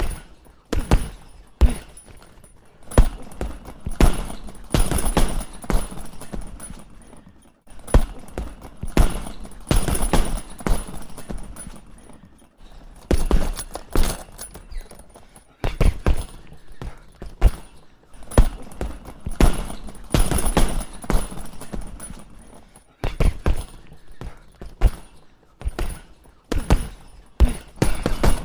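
Boxing gloves punching a heavy punch bag in quick, irregular combinations of several hits, with short pauses between the flurries.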